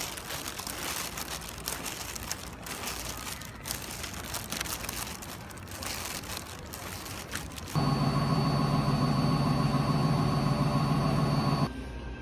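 A plastic bag rustling and crinkling with handling noise. About eight seconds in, a loud, steady motor or engine hum with a thin high whine over it cuts in, runs for about four seconds, and stops abruptly.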